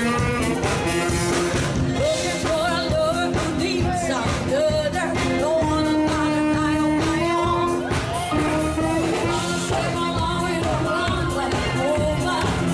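Live band playing a song with a singer's voice carrying the melody over amplified instruments.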